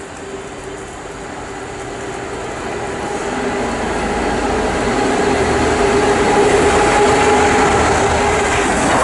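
Class 66 diesel locomotive, with its EMD two-stroke V12 engine, approaching and drawing alongside while hauling a steam locomotive and coaches: a steady engine drone over wheel and rail noise, growing louder throughout as the train nears and passes.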